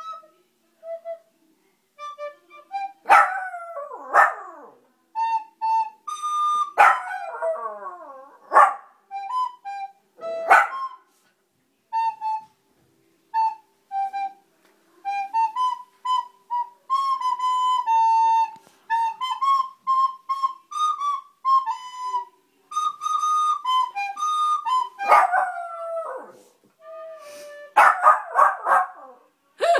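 A Volpino dog howling along to a slow tune of held notes on a flute-like instrument. The dog joins in with loud gliding howls and yelps several times in the first ten seconds, leaves the tune mostly alone through the middle, then howls again near the end.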